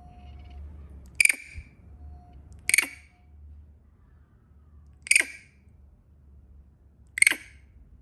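A monkey giving four short, sharp, high-pitched shrieks a couple of seconds apart: the 'kriiik' call of a frightened monkey.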